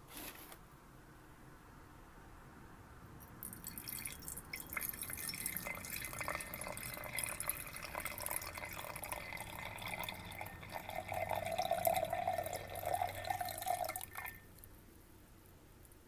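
Water poured or trickling into a glass for about ten seconds, starting a few seconds in and stopping suddenly near the end. A single light tap comes right at the start.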